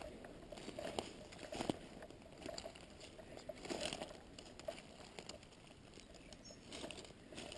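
Slow, faint footsteps crunching and rustling through dry leaf litter and bracken, with a few louder crunches.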